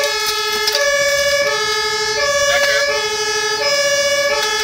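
German two-tone fire engine siren (Martinshorn) on an LF10 fire engine, switching between a lower and a higher tone about every 0.7 seconds, heard from inside the cab over the steady rumble of the truck's engine and tyres.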